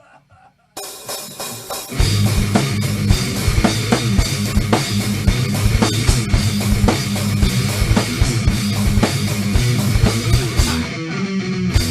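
Loud rock band music: drum kit, electric guitar and bass. It comes in about a second in, and the full band with heavy low end starts at about two seconds. The bass drops out near the end, leaving guitar and drums.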